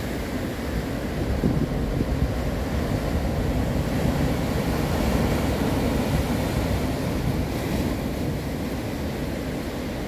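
Sea surf breaking and washing over rocks along a rocky shore: a continuous rush of foaming water that swells louder in the middle and eases a little near the end.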